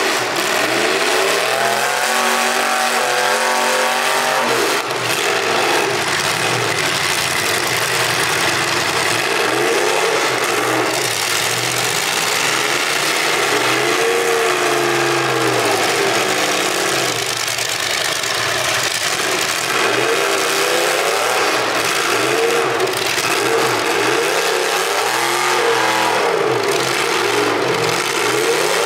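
Several demolition derby cars' engines revving hard at the same time, pitches rising and falling over one another, with a few sharp bangs from time to time.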